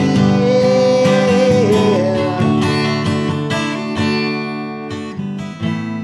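Cutaway acoustic guitar strummed and picked as a slow song accompaniment, with a long held sung note over the first two seconds.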